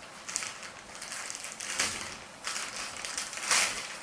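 Parcel packaging being torn open and handled by hand: irregular crinkling and rustling, with louder bursts about two seconds in and again near the end.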